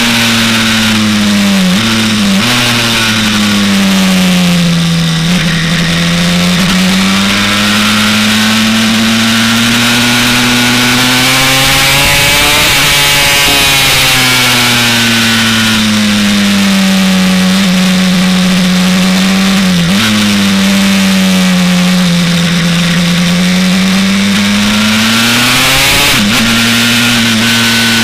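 Honda TRX 250R-based 327cc two-stroke single-cylinder engine of a race bike under load at speed, heard from on board. Its pitch sweeps down and back up with the throttle, with short breaks at gear changes about 2 s in, near 20 s and near 26 s, and a rougher patch around 12–13 s.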